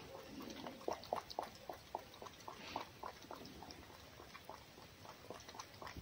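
Red fox eating from a hand-held bowl: faint, irregular short smacking and lapping sounds, a few a second.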